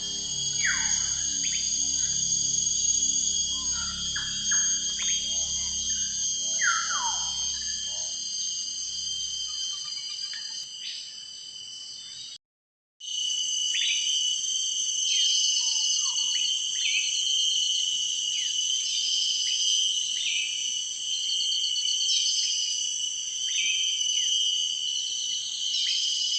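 Rainforest ambience: a steady high-pitched chorus of insects, with short downward-sweeping calls and repeated pulsed trills over it. Soft background music plays under it for the first ten seconds or so, and the sound cuts out briefly about halfway through.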